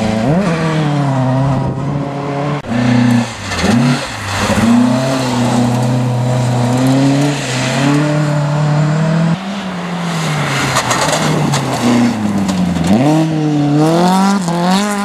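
Rally car engines, Volvo 240s and a Toyota Starlet, run hard on a gravel stage as the cars pass one after another. The revs drop and climb again at gear changes and throttle lifts: several quick dips in the first few seconds, a long steady pull through the middle, then a deep drop and a rising climb near the end.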